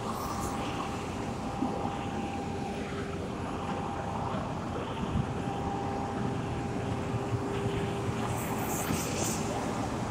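Semi truck's diesel engine running with a steady low drone and a held hum.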